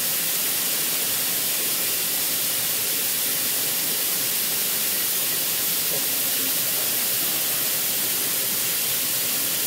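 CNC machine running a cutting pass: a steady, even hiss that stays level throughout.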